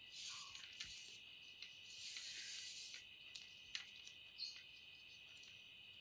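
Faint rustling of satin ribbon being gathered up by hand, in two short bursts, over a steady high-pitched trill in the background.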